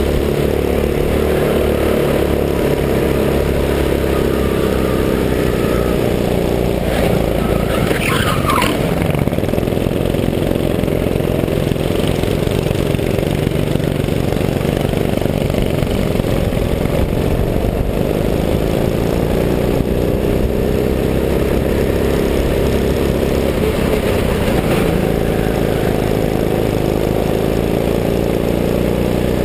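Go-kart engine running steadily at speed, heard from the driver's seat, with a brief high-pitched sound about eight seconds in.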